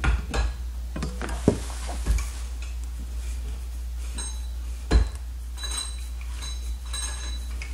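Black metal tube sections of a Hampton Bay Selsdon floor lamp pole clinking and knocking as they are fitted together and the fine aluminum joint is screwed tight, with a few sharp taps and brief metallic rings. A steady low hum runs underneath.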